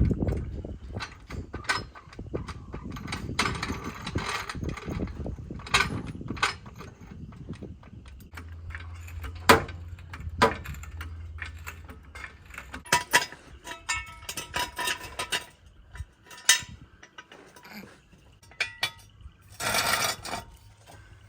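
Hand tools working on a car's engine mounts: scattered metallic clinks, clicks and knocks of wrenches and ratchets on steel, with a low steady hum for a few seconds near the middle.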